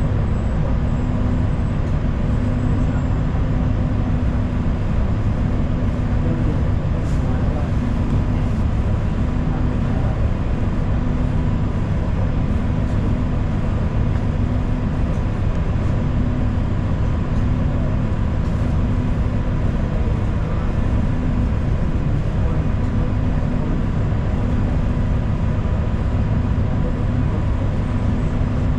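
Steady drone of a moving city transit bus heard from inside, with engine and road noise and a faint steady whine.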